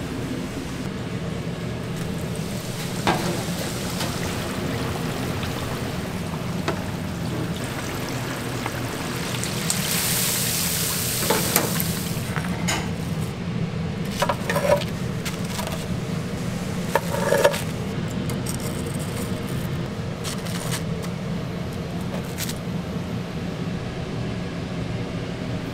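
Commercial deep fryer at work on breaded chicken: oil sizzling over a steady low hum, swelling for a moment partway through. Several sharp metal clinks come from the wire fryer basket and tongs, bunched in the middle.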